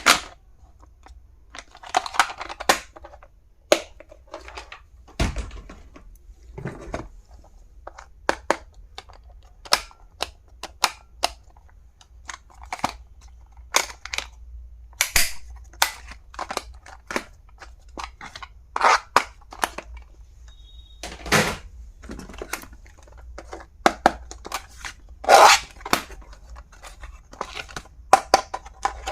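Stationery items and their plastic packaging being handled: irregular clicks, taps and knocks, with a few short rustles and crinkles.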